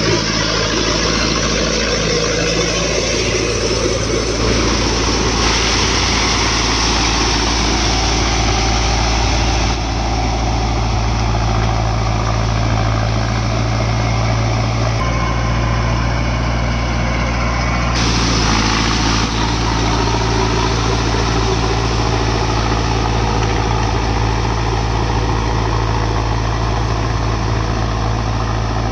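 Mahindra Arjun Novo 605 DI-MS tractor's four-cylinder diesel engine running steadily under load as it pulls a rotary implement through wet mud. The sound shifts abruptly a few times.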